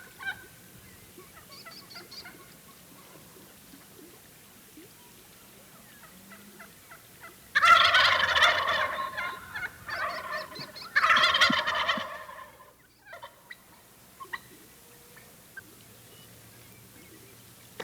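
Merriam's wild turkey gobblers gobbling loudly about halfway through, two or three rattling gobbles over some four seconds. Faint small bird chirps come early on.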